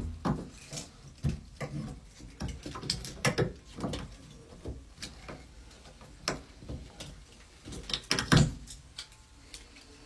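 Irregular knocks, clunks and clicks of brass washing-machine valves and copper pipe fittings being handled and fitted. The loudest knocks come at the very start and about eight seconds in.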